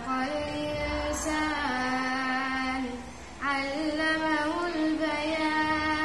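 A boy reciting the Quran in the melodic tajweed style, drawing out long held notes that slide between pitches, with a short breath pause about three seconds in.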